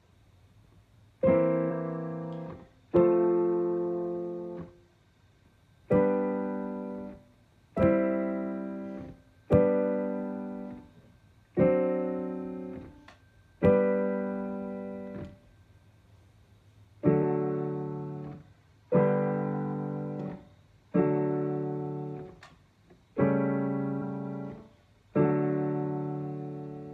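Digital piano playing a C–F–G–D chord progression: one chord struck about every one and a half to two seconds and left to ring down, with a short pause a little past halfway.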